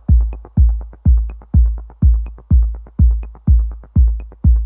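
Electronic dance music with a steady, heavy kick drum about twice a second and lighter ticks between the beats.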